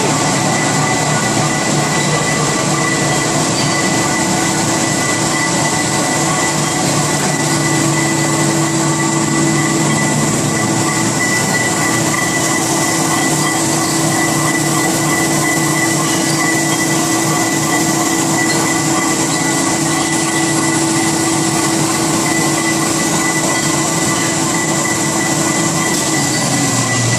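Wrapping machine running: a steady mechanical whir with a constant high whine and a low hum. Near the end the hum drops in pitch as the motor winds down.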